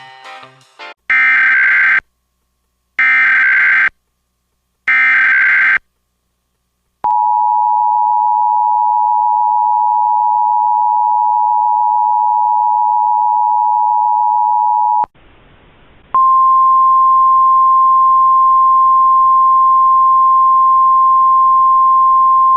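Emergency Alert System tones: three one-second bursts of SAME header data, each followed by a one-second gap, then the two-tone attention signal, held steady for about eight seconds. After a brief hiss comes a single steady NOAA Weather Radio 1050 Hz warning tone over static.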